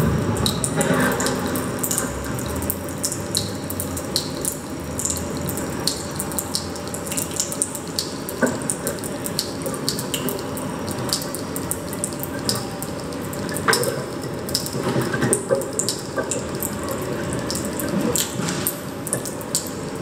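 Tap shoes lightly tapping and scuffing on a wooden dance board: many soft, irregular clicks over a steady hiss, with a few sharper taps in the middle stretch.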